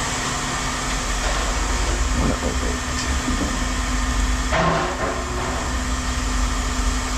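Heavy machinery running with a steady low drone and hum, with some light clatter about two seconds in and a short burst of noise about four and a half seconds in.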